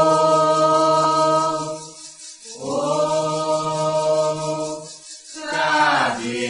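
Yoruba devotional chant for Xangô, sung in long held notes: two sustained tones, then a downward slide about six seconds in.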